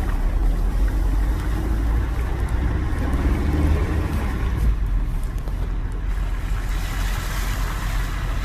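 A motor running steadily: a continuous deep rumble with a rushing noise over it.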